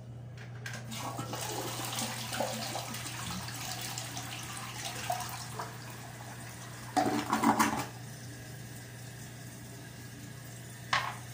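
Edesa toilet flushing: water rushes into the bowl and swirls down, with a louder surge about seven seconds in as the bowl drains. A quieter hiss of refilling follows, with a brief sharp sound near the end.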